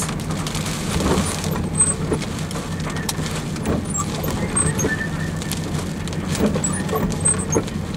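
Thunderstorm winds of about 50 to 55 mph buffeting a truck, heard from inside the cab as a steady low rumble and hum, with scattered light ticks of wind-blown dirt and raindrops on the windshield.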